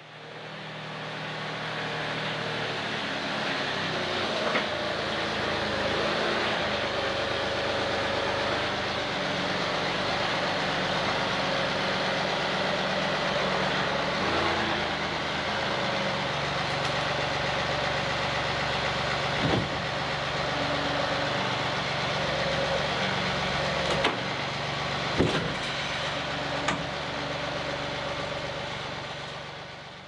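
Engine running steadily, its pitch stepping up and down now and then, with a few sharp knocks about two-thirds of the way through. It fades in at the start and fades out at the end.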